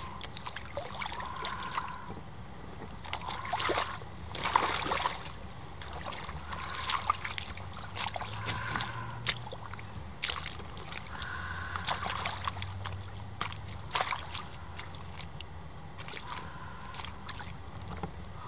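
Wet mud squelching and splashing under rubber boots as a person in a rubber suit gets up out of a muddy puddle and wades out. The sounds are densest about four to five seconds in, then come as separate steps.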